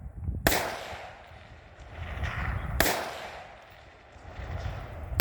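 Rifle shots fired at match targets: two sharp shots about two and a half seconds apart, each with a trailing echo, and a third right at the end.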